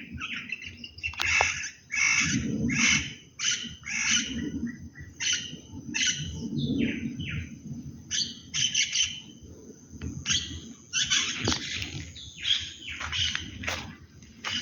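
Birds calling in a dense run of short chirps and squawks, one after another every half second or so, over a low background rumble.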